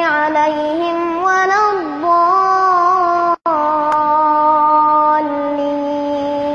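A young child's voice chanting Quran verses in a melodic recitation, with ornamented turns between notes and a long held note in the second half. The voice cuts out for an instant about halfway through.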